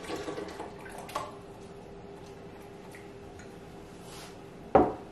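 A spoon lightly clinking and scraping against a glass measuring cup in the first second or so, under a faint steady hum, then one sharp knock near the end.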